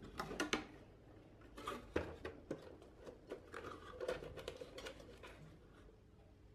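Light rustling and scattered clicks of cardboard packaging and the enamelled cast-iron braiser being handled in its box, thinning out near the end.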